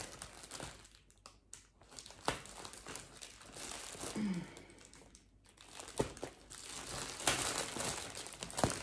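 Thick plastic parcel wrapping crinkling and crackling as it is pulled and cut open, in uneven bursts with a few sharp snaps and two short pauses.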